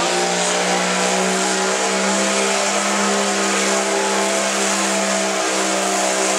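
Case farm stock diesel tractor running at full throttle under load as it pulls the sled down the track, one steady engine note that climbs a little in pitch over the first couple of seconds and dips briefly about five and a half seconds in.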